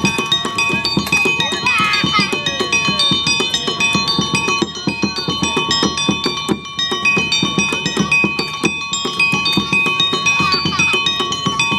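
Street performers' percussion music: a drum beaten fast and steadily under repeated ringing metallic notes.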